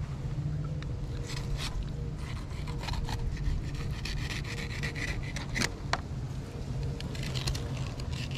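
Fillet knife cutting through a cero mackerel on a cleaning table, several short scraping strokes of the blade along the fish, over a steady low rumble.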